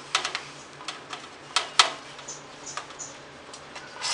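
Hand rubbing ghee over a stainless steel plate: scattered light clicks and taps of fingers and plate on the metal, with three faint high squeaks around the middle.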